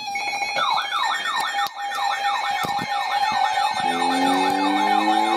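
Electronic siren: a fast yelp sweeping up and down about three times a second over a steady alert tone. About four seconds in, a second siren joins with a slow rising wail.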